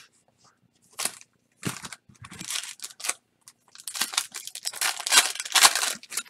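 Foil trading-card pack crinkling in the hands and being torn open, in short crackles at first and then a longer, louder run of crinkling and tearing near the end.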